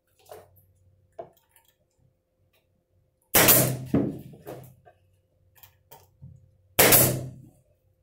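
Wooden birdhouse parts knocking as they are handled and fitted together: a couple of light taps, then two loud wooden knocks about three and a half seconds apart.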